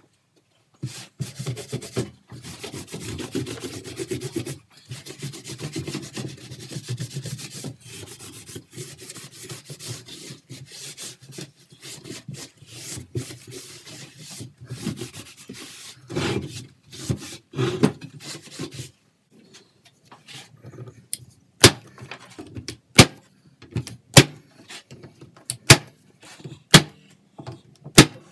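A brush scrubs paste wax into a rough pallet-wood frame in quick, continuous strokes. After a short pause about two-thirds of the way in, a corded electric staple gun fires about six sharp single shots, roughly one to one and a half seconds apart, fixing a hardboard panel. The staple shots are the loudest sounds.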